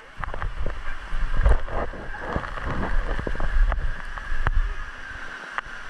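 A rider going down a water slide: rushing water and wind noise on the microphone, with repeated knocks and thumps of the body and camera against the slide.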